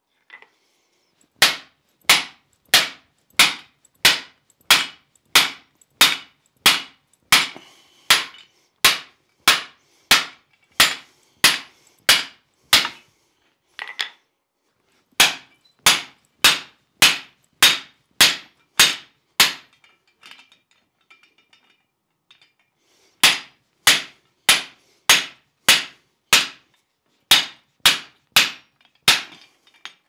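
Hand hammer striking the top die of a blacksmith's guillotine tool on the anvil: sharp, ringing steel-on-steel blows, about one and a half a second, in three runs with short pauses a little past a third and about two thirds of the way through. The first run cuts off a piece of hot steel bar; the later blows flatten it between tenon dies.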